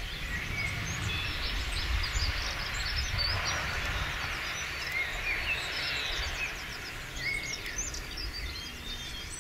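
Small birds singing and chirping, many short quick notes, over a low steady rumble.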